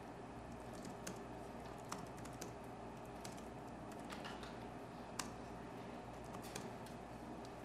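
Faint, irregular keystrokes typed on a laptop keyboard, short runs of key clicks with pauses between them.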